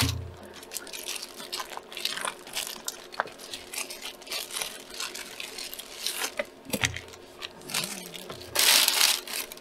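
Plastic crinkling and rustling as reusable storage bags and their packaging are handled, in irregular crackles. There is a thump right at the start, and a louder burst of rustling near the end.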